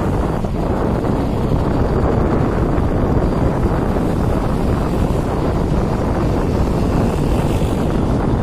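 Freight train running: a steady rumble and rushing noise with wind on the microphone.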